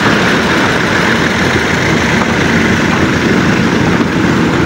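Hyundai Shehzore pickup's engine running steadily as it slowly moves off, towing a horse carriage over muddy ground.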